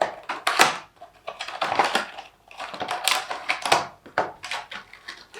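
Handling noise of a charging cable's retail packaging being opened: irregular clicks, crackles and rustles of the pack and cable being pulled about.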